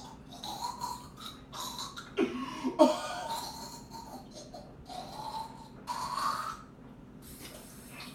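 A man's heavy breathing and throat noises, irregular, with a few short, louder vocal noises about two seconds in and again near six seconds: his reaction while getting down a mixture of fridge condiments.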